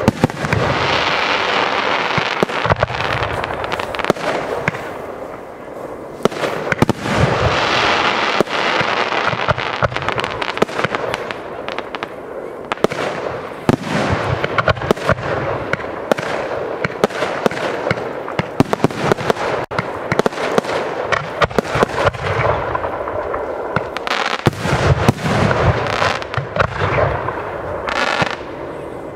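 Aerial firework shells bursting in rapid succession: many sharp bangs close together over continuous crackling, which swells and fades in waves.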